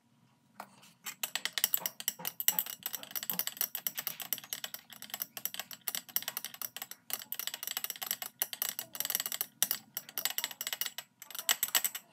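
Glass stirring rod clinking against the inside of a glass beaker as the solution is stirred during a titration: a fast run of light glassy ticks, many a second, starting about a second in.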